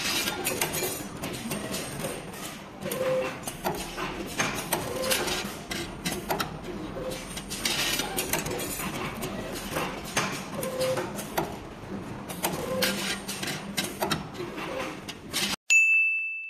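CNC wire bending machine running as it bends wire, a steady mechanical clatter full of rapid clicks with a short tone coming back about every two seconds. Near the end it cuts off abruptly and a single bright chime dings and rings out.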